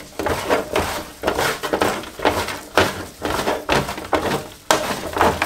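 Raw chicken wings coated in spices and mustard being tossed and rubbed by gloved hands in a metal roasting tray, a rhythm of short handling strokes about twice a second.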